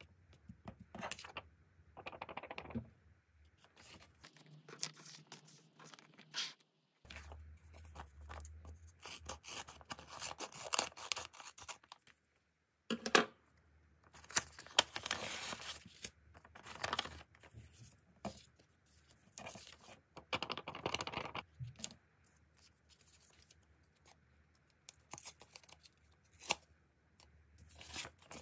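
Paper handled close to the microphone: irregular bursts of rustling, crinkling and tearing as a handmade paper blind bag is opened and its folded paper cards are unfolded. There is a brief pause about halfway through.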